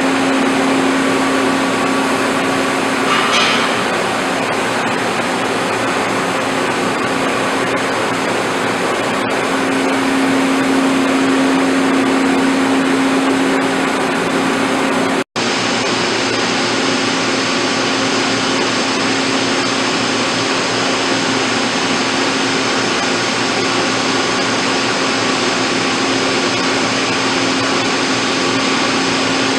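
Racer HB-110CB CNC horizontal boring mill running under power: a steady whirring noise with a constant hum. It cuts out for an instant about halfway through.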